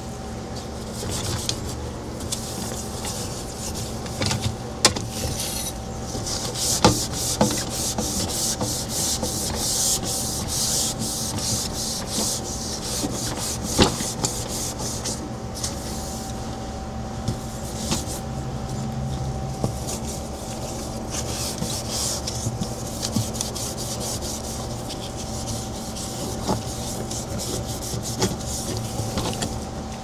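Quick repeated back-and-forth rubbing strokes against a hard surface, as in scrubbing, over a steady low hum.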